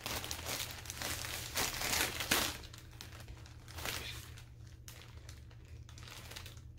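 Plastic poly mailer bag crinkling as it is cut open with scissors and pulled apart, busiest in the first couple of seconds, then quieter, sparser rustling.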